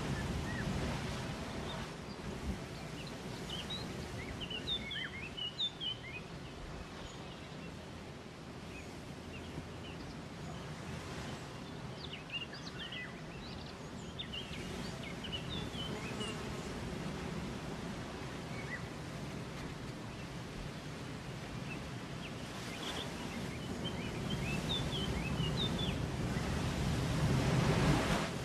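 Outdoor ambience: a steady rushing noise, with small birds chirping in short clusters a few seconds in, again around the middle, and near the end. The rushing swells just before the end.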